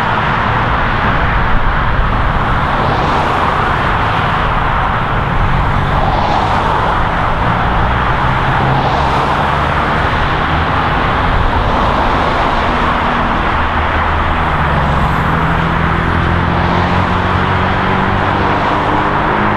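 Dense highway traffic: a continuous rush of cars passing at speed, with engine hum from heavier vehicles and an engine rising in pitch near the end.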